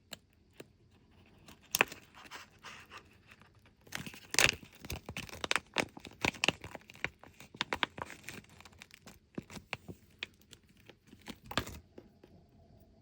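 Packaging being torn open and crinkled by hand: an irregular run of sharp crackles and snaps, loudest about four and a half seconds in, stopping about a second before the end.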